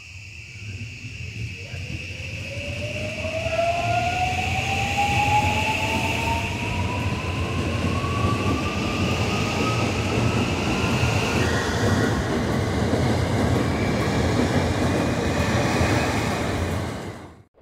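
JR West electric train accelerating past, its traction motors giving a whine that rises steadily in pitch over a heavy rumble of wheels on rail. The sound swells over the first few seconds and cuts off suddenly near the end.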